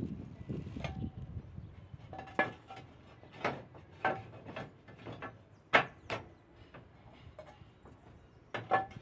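Irregular hard knocks and clinks from roof repair work, some with a short ringing, the loudest a little before six seconds in. A low rumbling handling noise runs through the first two seconds.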